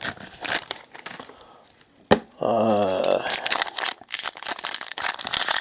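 Foil trading-card pack wrappers crinkling and tearing as packs are opened, with one sharp click about two seconds in.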